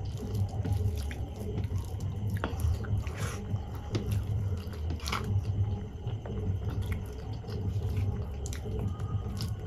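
Close-miked chewing of a mouthful of soft khichdi, with many small wet mouth clicks. Fingers squish and mix the food on a steel plate.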